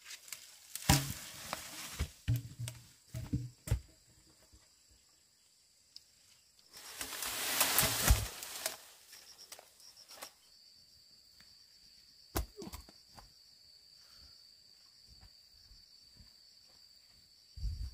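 Scattered knocks and thuds of wood in the first few seconds, then a loud rush of noise lasting about a second and a half around seven seconds in. From about ten seconds in, a steady high insect buzz.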